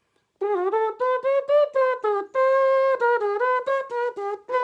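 Trumpet playing a short melody of about a dozen quick, separated notes, scooping up into some of them, with one longer held note in the middle; it starts about half a second in.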